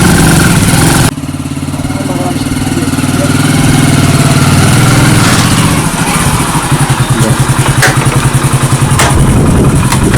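An engine running steadily, dropping suddenly in level about a second in, with a fast even pulsing over the last few seconds.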